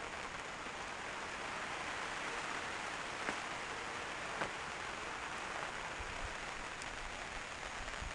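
Steady rain falling on leaves and ground: an even hiss, with a couple of faint drip ticks in the middle.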